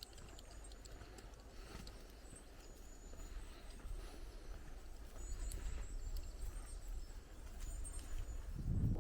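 Footsteps on a forest path, with faint high-pitched bird calls and a low wind rumble on the microphone that grows to loud buffeting near the end.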